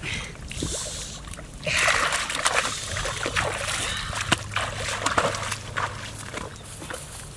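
Feet splashing and sloshing through shallow muddy water in irregular wading steps, loudest about two seconds in.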